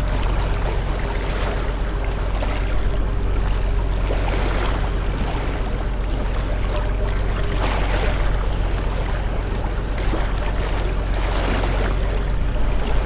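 Motorboat engine running steadily under way, with water splashing and rushing against the hull in swells every second or two.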